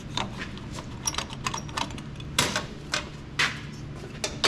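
Irregular metallic clicks and clanks of hand tools and parts being handled on the tractor's engine bay, just after the air cleaner clamps were tightened, over a faint steady low hum.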